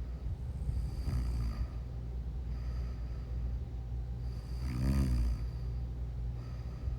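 A person snoring in sleep: soft breaths every second or two, then one loud, buzzing pitched snore about five seconds in, over a steady low hum.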